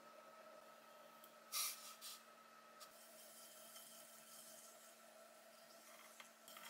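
Faint steady hum of an electric potter's wheel turning, with quiet wet rubbing of hands on the spinning clay and one short louder wet squish about one and a half seconds in.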